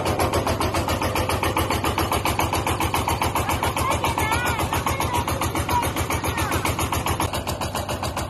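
An engine running steadily with an even, rapid chugging of about ten beats a second, with a few short rising-and-falling chirps near the middle.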